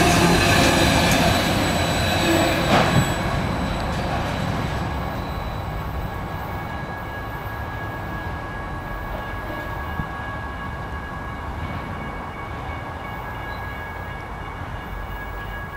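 A train rolling past on the tracks. It is loudest at the start and fades over the first few seconds as it moves away, leaving a fainter steady rolling noise with a thin high whine held throughout.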